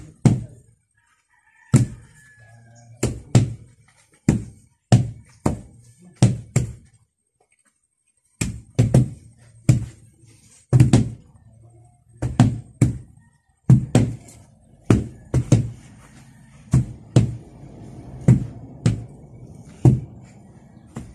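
Wooden hand tampers pounding a loose earth floor to compact it: a run of dull thuds from several tampers striking out of step, at an uneven pace of roughly one to two a second, with a break of about a second and a half some seven seconds in.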